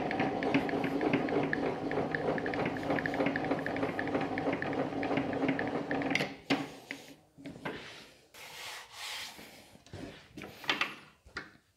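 Blade-height crank of a Metabo TS 254 table saw being turned by hand, its gear mechanism giving a rapid, even ticking as the blade rises through the table. It stops about six seconds in, leaving a few faint rubs and taps of hands on the table.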